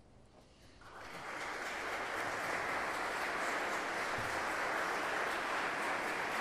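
A steady, even rushing noise with no pitch, swelling up about a second in and then holding level.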